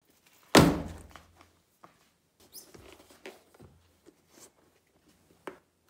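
A motorcycle boot set down on a workbench with one loud thump about half a second in, followed by quieter rustling and a few light knocks as the boot is handled and turned over on the bench.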